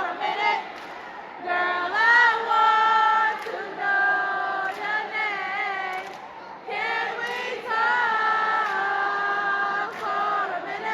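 Young voices singing together without instruments, holding long notes that bend up and down, with short breaks between phrases.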